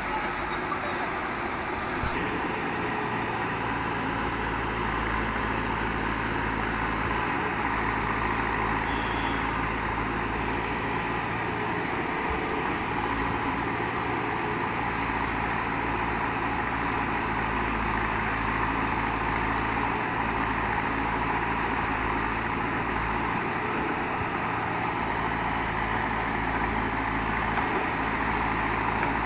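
Terex TLB 740S backhoe loader's diesel engine running steadily under load while it digs and loads soil.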